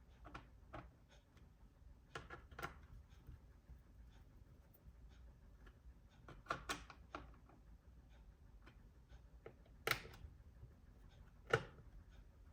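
Sparse light clicks and taps on a laptop, singly and in pairs, with two louder knocks near the end.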